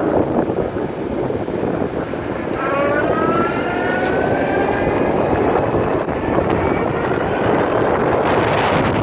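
Electric motor whine from the e-bike's 3,000-watt mid-drive, rising quickly about two and a half seconds in and then slowly sinking, over a steady rush of wind on the microphone.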